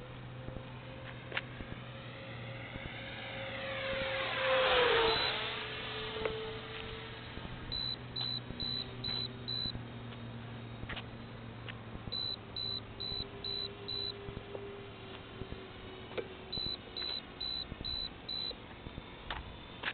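Twin electric ducted fans of an RC Me 262 jet passing by: a rushing whine that swells to its loudest about five seconds in and drops in pitch as it goes past. From about eight seconds, a high electronic beep sounds in groups of five, repeating every four to five seconds.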